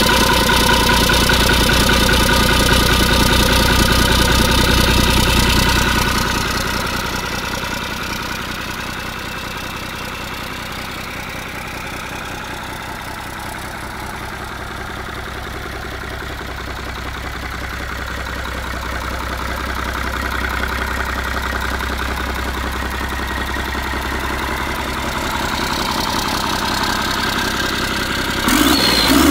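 Hyundai D6DA six-cylinder turbodiesel running just after start-up. It runs louder for the first six seconds or so, then settles to a quieter, steady idle. It grows louder again near the end.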